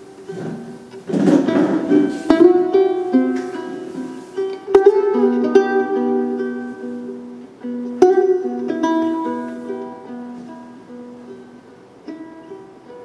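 Instrumental music of sustained and plucked-string notes, with clear new note attacks about two, five and eight seconds in, and a short burst of noise about a second in.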